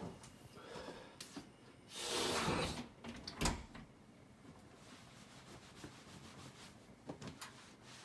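A wooden interior door: a swish about two seconds in, then a sharp click of the latch about a second later, followed by a few faint taps.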